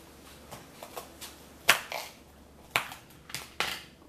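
Knife cutting through a green bell pepper on a plate: a string of short, sharp knocks and crunches, the loudest a little under two seconds in and two more near the end.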